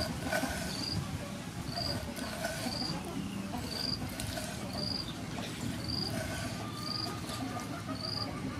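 A large knife slicing raw pork on a wooden cutting board, with soft cuts and knocks. Behind it an insect chirps steadily: one short high chirp about once a second.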